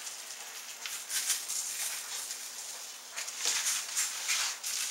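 Hands rubbing dry seasoning into a raw pork loin on butcher paper, the paper rustling. The sound comes as a series of short, hissy scrapes.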